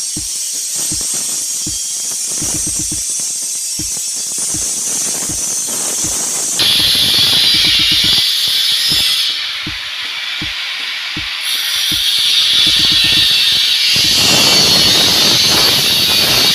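Background music with a steady thumping beat, over a loud high hiss that jumps up and down abruptly several times.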